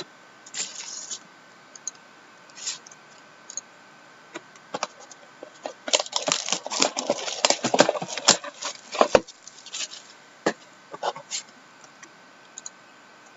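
Trading cards and their packaging being handled: scattered sharp clicks and taps, with a dense spell of crinkling and rustling about six to nine seconds in.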